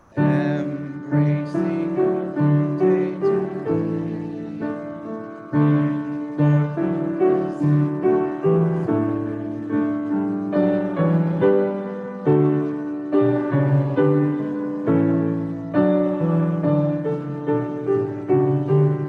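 Grand piano playing a slow song accompaniment: chords and a melody line, each note struck and then fading, in a steady pulse.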